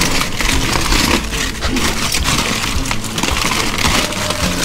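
Aluminium foil crinkling and crackling continuously as hands pull it open.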